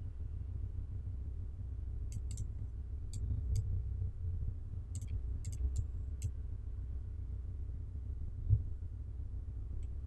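Computer mouse clicking: about ten sharp clicks in small clusters over a steady low hum, with a soft low thump near the end.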